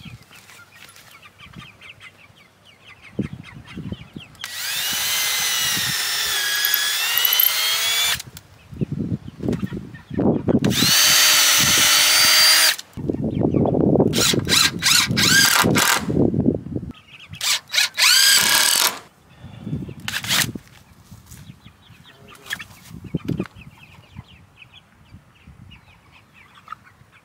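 Cordless drill running in several separate bursts, the longest about four seconds, its motor whine wavering in pitch as it drives into the wooden frame.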